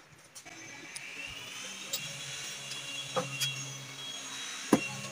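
A motor starts about half a second in and runs steadily, with a low hum and a high whine. Three sharp knocks sound over it, the loudest near the end, as the van's loose rear seats are handled.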